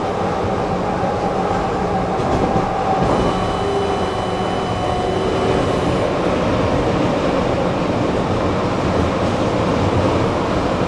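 Tram running along the track, heard from inside the passenger car: a steady rumble of wheels on the rails, with a thin high whine for a few seconds near the middle.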